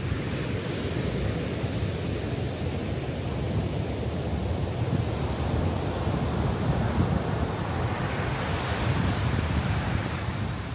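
Ocean surf breaking and washing up the sand, its hiss swelling twice, with wind buffeting the microphone as a steady low rumble.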